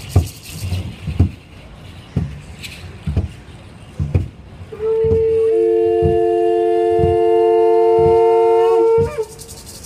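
Upright huehuetl drum struck in slow single beats about once a second. About five seconds in, two conch-shell trumpets join in one long held blast on two different notes lasting about four seconds, then stop together.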